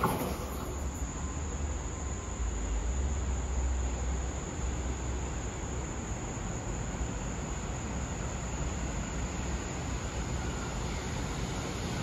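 Low, steady rumble of a commuter train at a distance, easing off after about eight seconds, with a faint high steady chirring of crickets.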